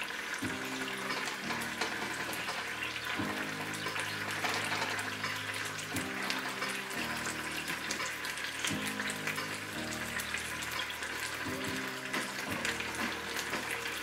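Vegetables sizzling and crackling in a frying pan, a steady hiss full of fine spits and pops, over background music.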